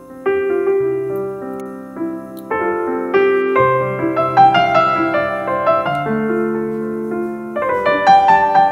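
Background piano music: gentle chords with a melody over them.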